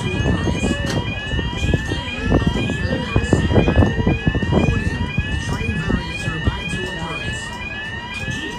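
Level crossing audible warning alarm sounding: an electronic tone that sweeps upward, repeating about twice a second.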